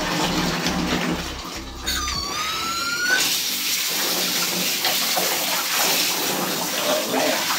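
Water spraying steadily from a handheld shower sprayer onto a dog in a bathtub. The spray starts about three seconds in, right after a brief rising squeal.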